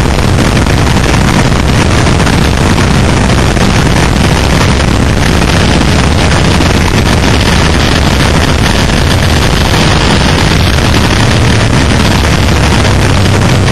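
Heavy wind rush on an onboard motorcycle camera at track speed, with the Suzuki SV650's 645 cc V-twin engine running underneath.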